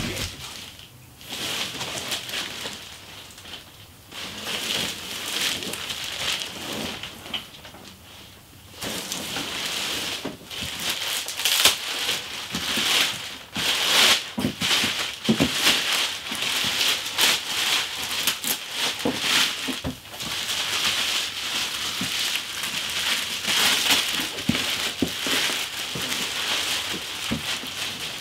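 Clear plastic wrap crinkling and rustling as it is pulled off a large cardboard box, with many sharp little crackles. Fainter and patchier at first, then louder and nearly continuous from about nine seconds in.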